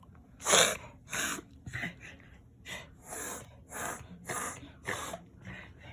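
A pet's coughing fit: one loud hacking cough about half a second in, then a run of about eight breathy, wheezing hacks, a little under two a second.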